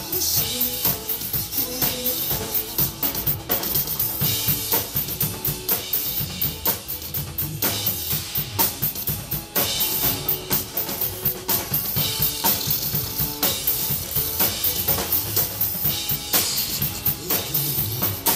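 Drum kit played over a backing track of the song's instrumental music: steady kick and snare strokes, with cymbal crashes flaring up every few seconds.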